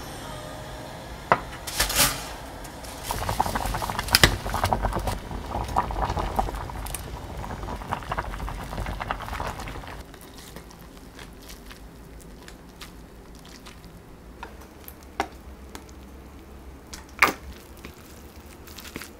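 Water sloshing and bubbling in a saucepan for about the first ten seconds. Then a quieter stretch of cooked spaghetti being handled in a ceramic dish with chopsticks, with a couple of sharp clinks near the end.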